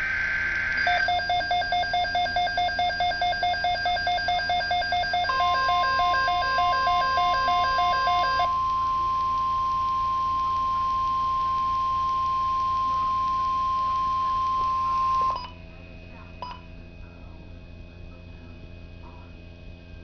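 The tail of a NOAA Weather Radio SAME data burst (a short screech of digital tones), then a Midland weather alert radio's own alarm pulsing about four times a second. About five seconds in, the steady 1050 Hz NOAA warning alarm tone joins it, holds for about ten seconds after the pulsing stops, then cuts off, leaving low hum.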